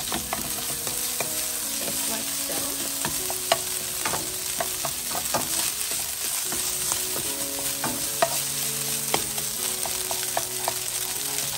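Day-old cooked rice and frozen corn sizzling in melted butter in a pan over medium-high heat as they are stirred together. The stirring utensil clicks and scrapes against the pan at irregular intervals.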